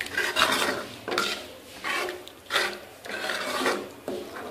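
Metal spoon scraping and stirring against the bottom and sides of a metal karahi, in repeated rasping strokes, as minced mutton and yogurt are mixed together.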